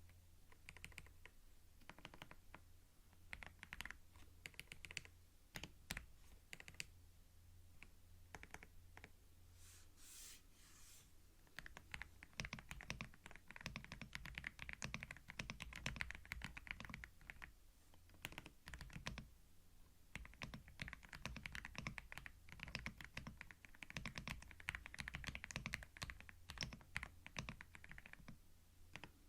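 Typing on a computer keyboard, heard close through a binaural microphone: scattered, unhurried key presses at first, then fast continuous typing from about twelve seconds in. A brief soft hiss comes just before the typing speeds up.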